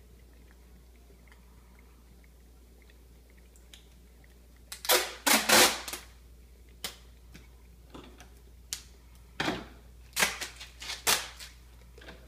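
American Akita puppy licking peanut butter from a jar: sharp, wet smacks and clicks of tongue and jaws, starting about five seconds in and coming in irregular clusters, the loudest just after they begin.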